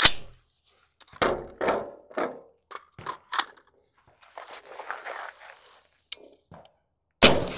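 Rifle handling: a sharp knock, then a string of metallic clacks as a magazine is swapped and the rifle readied. Near the end comes a single suppressed shot from a B&T APC223 5.56 rifle fitted with a Stealth Additive Works Mini 5.56 suppressor on its 1.3 gas setting, with the action locking open on the last round.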